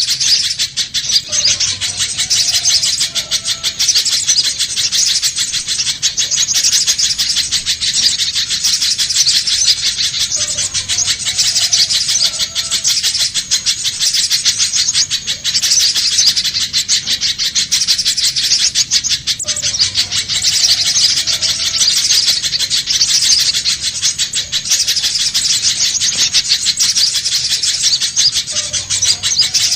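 Spiderhunter calling in a fast, unbroken run of high, sharp chip notes, as used to lure wild birds. The pattern repeats about every nine seconds.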